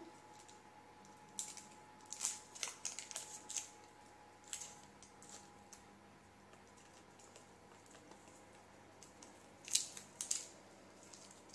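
Short crisp crackles of a stock cube's foil wrapper being peeled open by fingers while the cube is crumbled, in two bursts: about two seconds in and again near the end.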